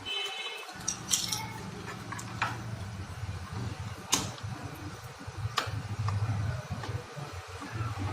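A low electrical hum sets in just under a second in, while parts and cables of an opened home theater unit are handled, giving a few sharp clicks and taps.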